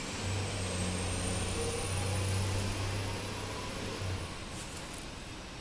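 A motor vehicle's low engine rumble with a thin high whine that climbs slowly, both stopping about four seconds in. A few light clicks follow.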